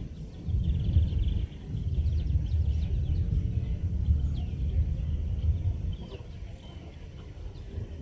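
Small birds chirping over the low bass of a social event's music in the background; the bass drops back about six seconds in.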